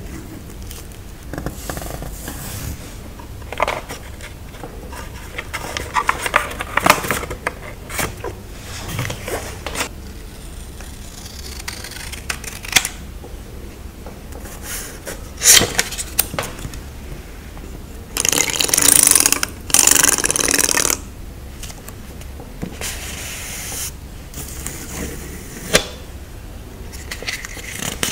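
Close-miked handling of paper stickers and a journal page: scattered crinkles, taps and rustles. About two-thirds through come two back-to-back longer rasping rustles, each over a second long.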